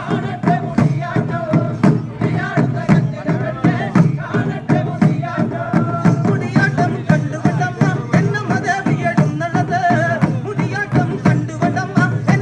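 Live Kerala folk music accompanying a Mudiyattam group dance: a group of drums beating a steady, fast rhythm, with voices chanting a wavering melody over the beat.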